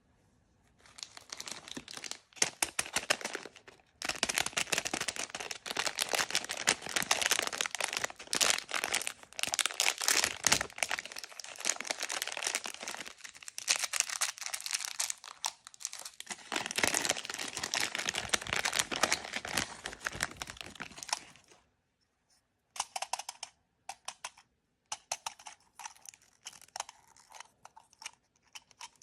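Packaging wrapper being crinkled and torn open by hand, a dense crackling rustle that stops about 21 seconds in. Scattered lighter crinkles and taps follow.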